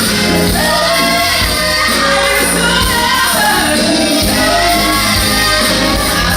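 Live band with singing, several voices together over steady bass and drums, in a large hall.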